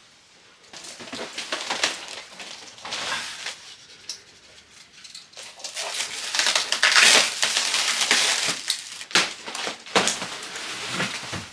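Packaging being torn and crumpled off a wrapped item: irregular bouts of tearing, rustling and crinkling, busiest about halfway through.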